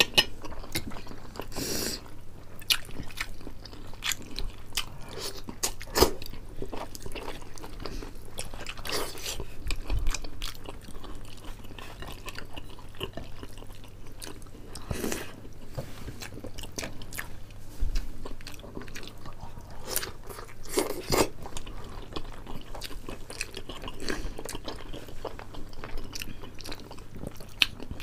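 Two people chewing and biting food close to the microphone, mostly boiled pork leg and rice, with irregular clicks and crunches throughout.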